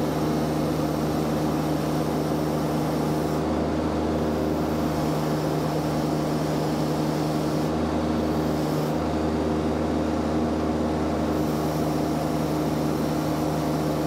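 Mini skid steer's engine running at a steady speed, an even hum that holds one pitch throughout.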